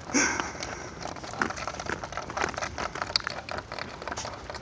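A long wooden stick dragged along asphalt by a Labrador, scraping and crackling in irregular clicks, louder for a moment just after the start.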